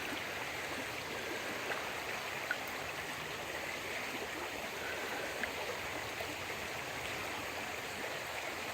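Stream water flowing steadily, with a few faint small clicks.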